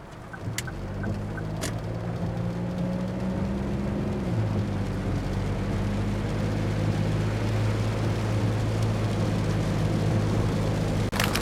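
Daihatsu Move's three-cylinder kei engine running steadily with road noise, heard from inside the cabin while driving. Its pitch changes about four seconds in. Two light clicks come in the first two seconds.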